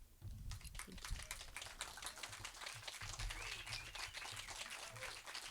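A small audience applauding with a steady patter of handclaps.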